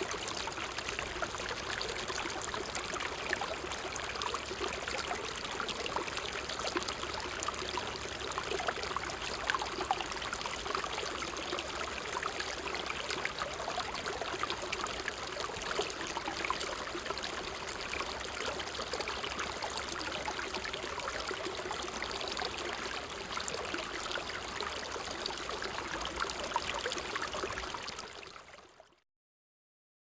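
Small river with a fast stream, water rushing and splashing in a steady, continuous stream. It fades out near the end.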